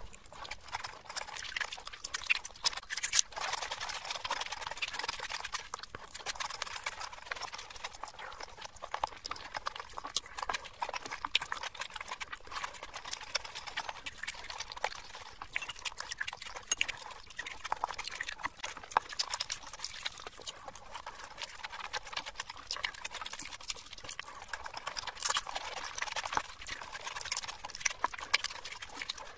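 Close-miked eating sounds: wet chewing and lip smacks on handfuls of fish biryani and fried fish, a dense patter of small moist clicks.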